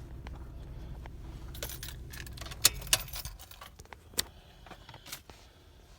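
A few sharp clicks and light metallic rattles, like small objects being handled, over a low steady rumble that fades out about halfway through.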